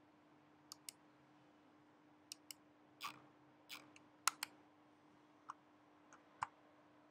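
Logitech M720 Triathlon wireless mouse buttons being clicked: about a dozen short, sharp clicks at irregular intervals, several in quick pairs, including presses of the button behind the scroll wheel. A faint steady hum lies underneath.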